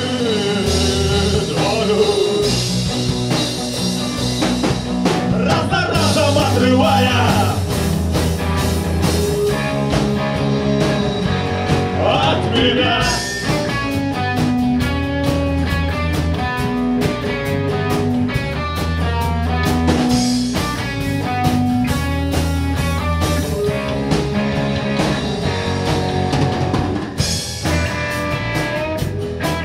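Live rock band playing an instrumental passage: twelve-string acoustic guitar, electric guitars, bass and drum kit. A wavering lead melody carries the first half, and quick picked guitar notes take over about halfway through.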